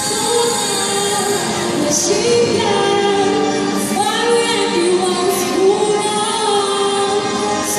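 A woman singing a song into a handheld microphone, amplified, over musical accompaniment.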